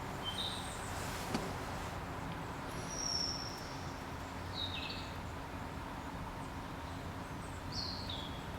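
Common kingfisher giving short, high, thin whistled calls, four times, some dropping slightly in pitch, over a steady background hiss. A single sharp click about a second and a half in.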